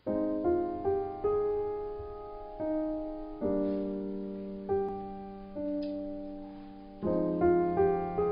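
Slow background piano music: soft chords and single melody notes, each struck and left to ring out, with a fresh chord about every three and a half seconds.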